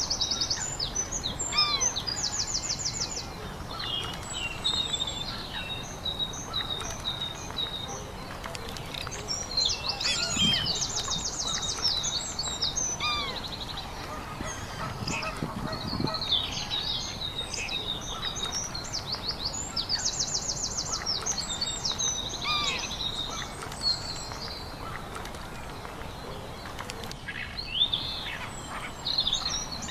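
Birdsong from several birds: many short chirps and whistles, with fast high trills of a second or two repeating every several seconds, and a few lower, louder calls.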